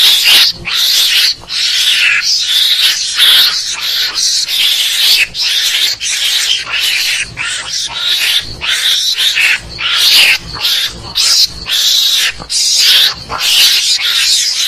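Mongoose calls from a hunting lure recording: loud, harsh, rasping chatter in rapid short bursts with brief gaps, repeated over and over.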